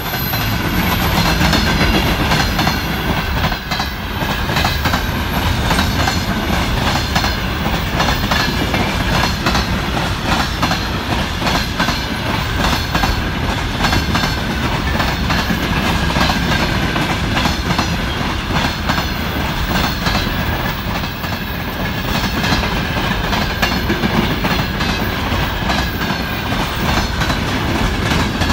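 Freight train of container flat wagons rolling past close by: a steady, loud clickety-clack of wheels over the rail joints, with a thin high tone running above it.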